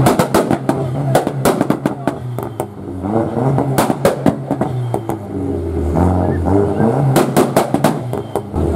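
Lowered Volkswagen Golf Mk4's engine running at low revs as the car pulls slowly away, its note rising and falling, with many sharp cracks and crowd voices throughout.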